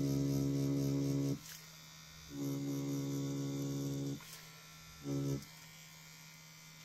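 Rotary pen-style tattoo machine buzzing with a steady hum as its magnum needle lines practice skin, running in three bursts: about a second and a half, then two seconds, then a short blip around five seconds in, stopping between them.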